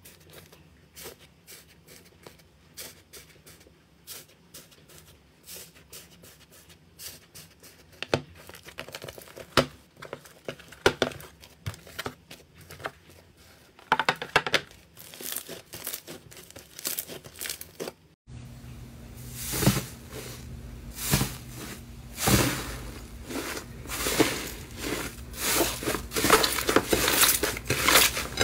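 Matcha-green iceberg slime crackling as fingers press and break its dried crust into flakes, a dense run of fine crisp crackles. About two-thirds through, the sound changes to a soft green slime being kneaded by two hands: louder crackling and squishing in pulses about once a second.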